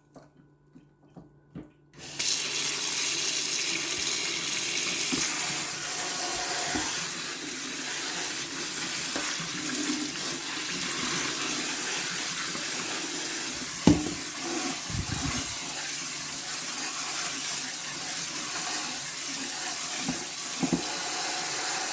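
Kitchen faucet turned on about two seconds in, running cold water steadily into the sink to rinse freshly boiled ramen noodles. One sharp knock about two-thirds through.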